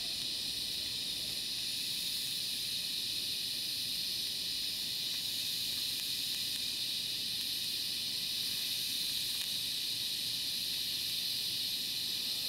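TIG welding arc on mild steel, fed with ER70S-2 filler rod, giving a steady, even hiss.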